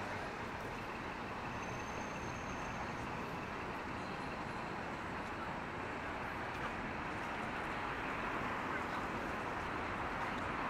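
Steady city street ambience: traffic running as an even hum of noise, with no single event standing out.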